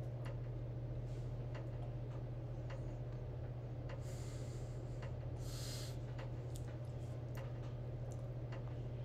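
Casablanca Victorian ceiling fan with an XLP motor running on speed 2: a steady low motor hum, with faint irregular ticks.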